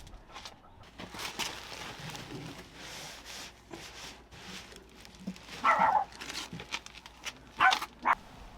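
A dog giving a few short barks, the loudest about six seconds in and again near eight seconds.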